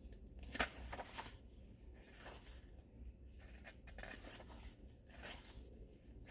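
Faint rustling and crinkling of paper as book pages are handled and turned, in a few short bursts, the loudest about half a second in.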